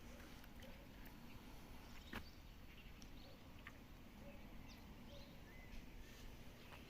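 Faint outdoor ambience with scattered short bird chirps, and a single sharp click about two seconds in.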